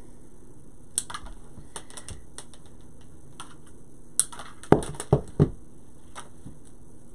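Scattered sharp clicks and snips of wire cutters working an artificial berry stem, with three louder knocks in quick succession past the middle as tools and stems meet the craft table.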